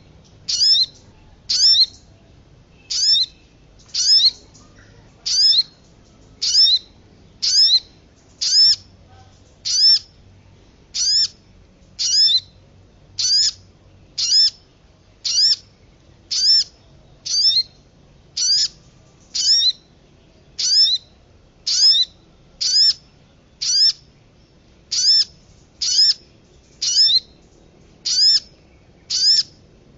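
Bird lure-call recording of a sogon: one short, high, sharp note that falls quickly in pitch, repeated evenly about once a second.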